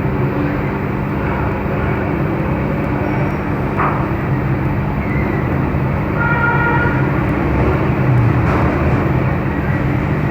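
Hot-air heat gun blowing steadily with a humming fan motor, heating a phone's charging-port board to melt the solder and free the old charging jack.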